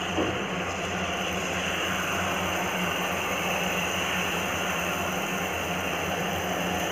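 Jalebi batter deep-frying in hot oil in a kadhai, a steady sizzle as fresh spirals are piped in and bubble, with a low hum under it.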